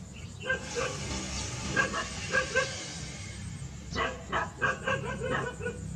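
A dog barking in short yaps, in three bursts of several barks a couple of seconds apart, over a steady low hum.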